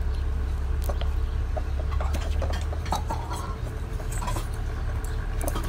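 A steady low rumble with scattered light clicks and taps of chopsticks and dishes during a meal.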